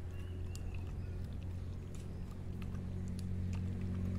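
A dog chewing and lapping its food from a plastic tray, faint wet clicks over a steady low mechanical hum, with a few short bird chirps early on.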